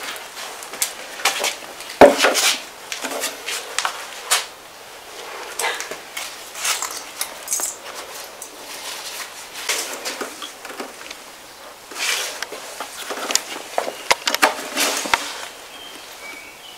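Light, irregular taps and clicks against the thick glass pane of the enclosure, with one sharper knock about two seconds in.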